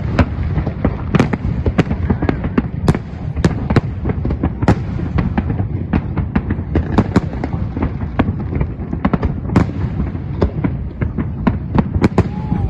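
Fireworks display: a dense barrage of shell bursts, several bangs and crackles a second over a continuous low rumble, with a faint whistle now and then.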